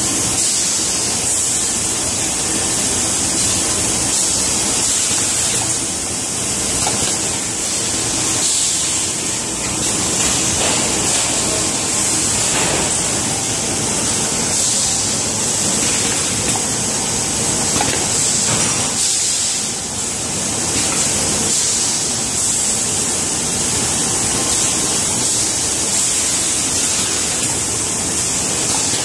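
Automatic bottle filling and foil sealing line running: steady machine noise dominated by a loud high hiss over a low rumble, with a few faint knocks.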